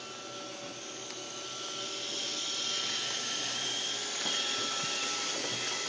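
Roomba robot vacuum running with a steady whirring hum and a faint high whine, growing louder over the first two seconds and then holding steady.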